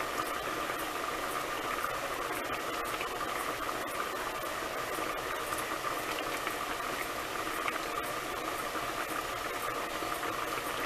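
Pot of lima beans in broth at a rolling boil under an ajar glass lid: steady bubbling with scattered small pops.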